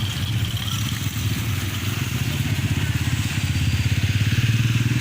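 A vehicle engine running with a steady low throb, growing louder from about three and a half seconds in.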